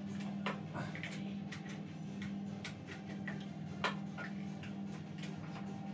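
Irregular small metallic clicks and ticks of a tool working the clamp bolts of a mountain-bike stem as they are undone, over a steady low hum.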